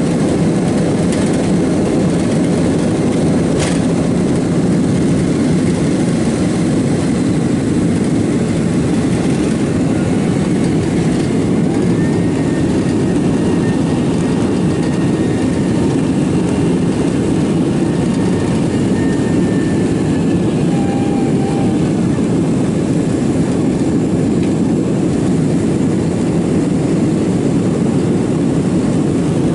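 Jet airliner engines at takeoff power, heard from inside the cabin: a loud, steady, deep noise through the takeoff and initial climb.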